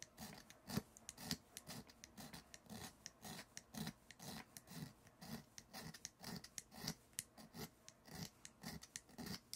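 A small hand file rasping back and forth across the edge of an electric-scooter brake pad, faint scraping strokes at about two a second.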